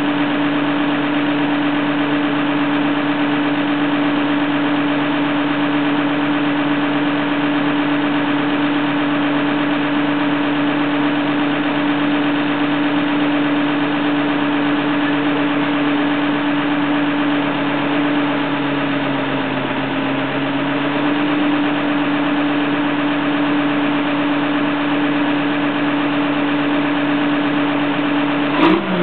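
Fiatagri 160-90 DT tractor's six-cylinder turbo diesel idling steadily, its pitch sagging slightly for a moment past the middle. A brief sharp click near the end.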